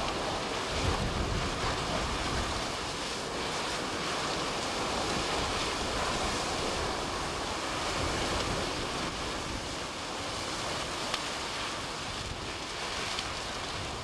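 Trees and brush burning where fast-moving lava has set them alight: a steady rushing roar of flames, with one sharp crack about eleven seconds in.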